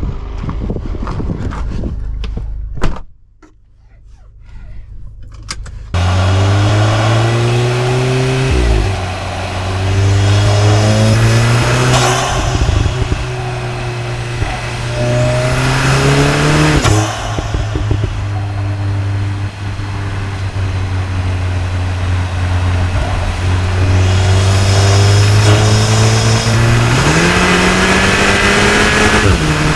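Stage-1 tuned 2.0-litre turbocharged four-cylinder EA888 engine of a Cupra Ateca pulling hard through the gears of its dual-clutch gearbox, heard from the intake and exhaust: the revs climb, drop at two upshifts, hold steady while cruising, then climb again near the end, with a faint high whine rising as each pull builds. Before the engine comes in there are a few seconds of quieter sound broken by one loud knock.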